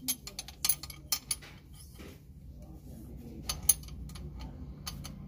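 Irregular sharp metallic clicks and clinks from a hand tool working a fan-shroud nut on the engine. The clicks come thick in the first second or so, then more sparsely with a few near the end.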